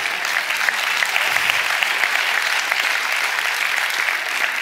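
Audience applause: a crowd clapping steadily and densely.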